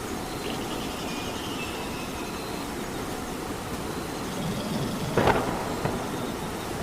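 Steady rain, with a short sharp crack about five seconds in and a smaller one just after.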